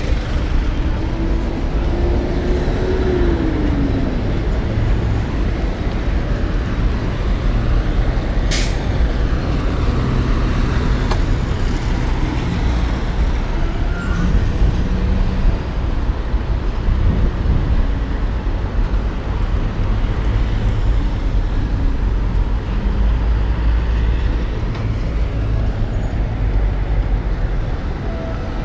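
Steady road traffic noise with a heavy low rumble, and a passing engine tone that rises and then falls in the first few seconds. A single sharp click comes about eight and a half seconds in.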